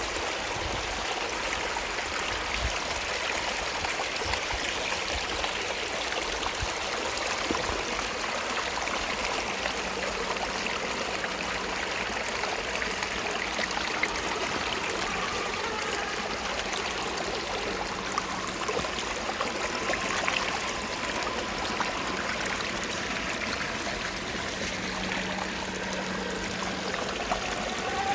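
Water flowing steadily, a stream's continuous rushing.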